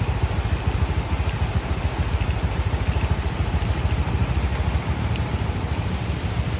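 Motorcycle engine running at a steady, low speed with a fast low pulsing, the bike fitted with tyre chains for a muddy forest track.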